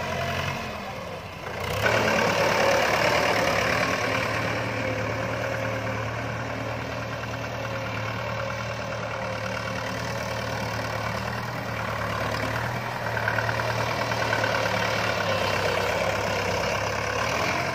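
Mahindra 575 DI tractor's diesel engine running as the tractor drives over spread pearl millet stalks to thresh them. The engine dips briefly about a second in, then comes back louder and holds steady.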